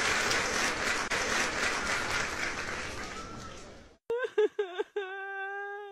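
Crowd applauding, dying away over about four seconds. After a sudden cut, a few short pitched notes sound, then one long held note.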